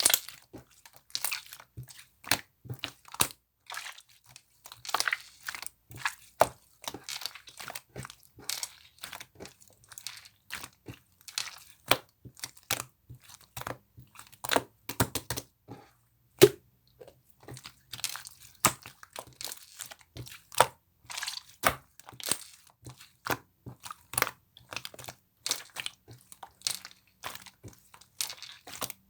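Irregular crunching, crinkling crackles, several each second, with one sharper, louder crack about sixteen seconds in.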